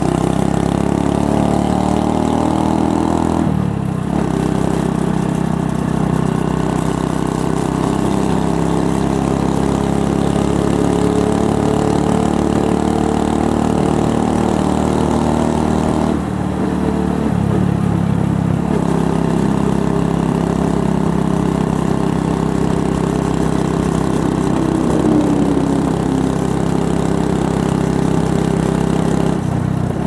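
2016 Honda Super Cub 110's single-cylinder four-stroke engine running through a Kitaco classic down muffler while riding, its pitch shifting with the throttle; the note breaks off briefly about four seconds in and again around sixteen seconds, then picks up. Picked up by a lavalier mic clipped inside the rider's sling bag, sheltered from the wind.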